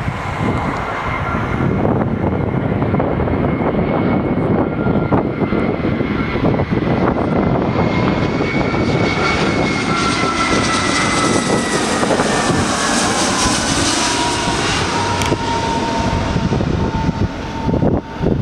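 Airbus A319-112's CFM56 turbofan engines on final approach, passing close by: a steady jet roar with a high whine. About nine seconds in the whine falls in pitch as the aircraft goes past, and the hiss peaks soon after.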